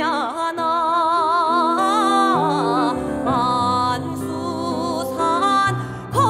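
Voices singing long, held notes with a wide vibrato in Korean folk style, in three vocal parts over piano accompaniment whose low notes change a few times.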